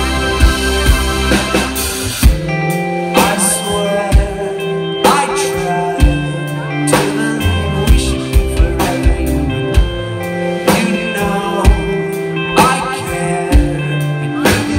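Live indie rock band playing: male lead vocal over electric guitars, bass guitar, keyboard and a drum kit keeping a steady beat, heard through a loud festival PA.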